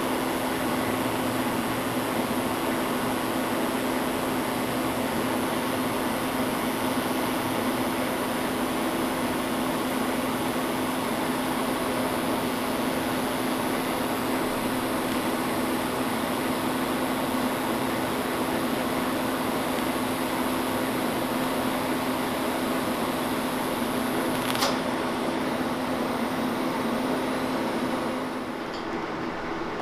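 TIG welding arc running steadily as silicon bronze filler rod is fed into a crack in cast iron, the part being heated so the bronze flows in: a steady electrical buzz with hiss. A single sharp tick comes a few seconds before the end, and the arc stops shortly after, leaving a quieter background hum.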